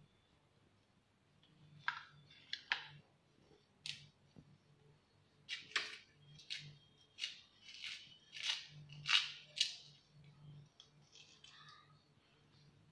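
Fresh green chillies being split and pried open by hand: a series of about a dozen short, crisp snapping and tearing sounds, coming thick and fast in the middle.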